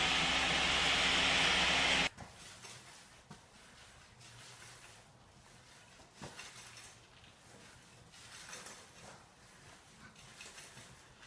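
A floor-cleaning machine runs with a steady loud hiss and hum, then cuts off suddenly about two seconds in. After that come faint clinks and knocks.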